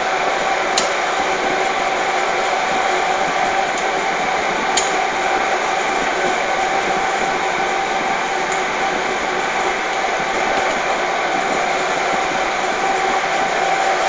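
Steady loud rushing noise with a constant hum, typical of an indoor shooting range's air handling, with no gunshots. Two faint light clicks come through as a pistol is handled at the bench.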